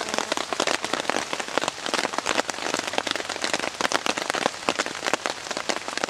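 Rain falling on a tarp overhead: a dense, irregular patter of drops.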